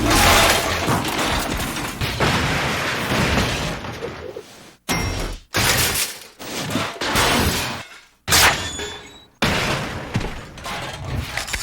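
A series of metal-on-metal crashes and smashes, about seven in all, each a loud hit with a ragged clattering decay and some with a high metallic ring, separated by brief silences.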